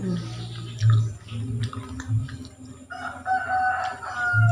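A rooster crowing: one long call starting about three seconds in and dropping in pitch at the end. Before it, small clicks and smacks from eating with a spoon.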